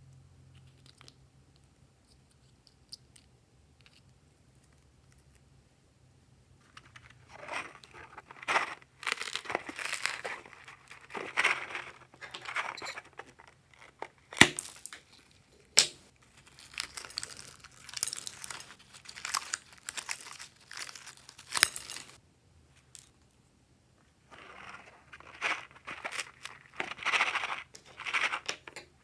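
Glossy slime being squished and stretched by hand. After several quiet seconds it comes in two long stretches of sticky handling noise, with a short pause between them and a couple of sharp clicks in the middle of the first stretch.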